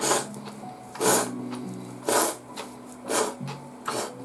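Ramen noodles being slurped, a series of short slurps about a second apart, over background music.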